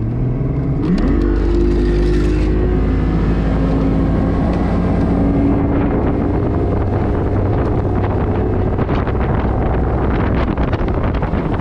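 Outboard motor of a Stratos bass boat throttling up: its pitch rises about a second in, then holds steady at speed. Wind and water noise build from about six seconds in.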